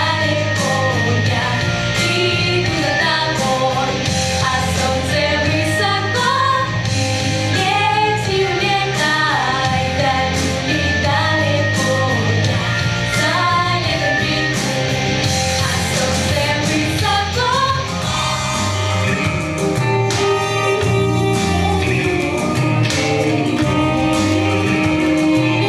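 Live song from a vocal ensemble, with singing over a steady band accompaniment of bass, drums and guitar.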